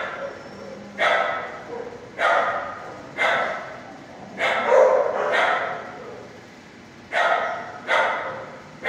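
Dog barking repeatedly in a shelter kennel room, about one bark a second, each bark echoing off the hard kennel walls.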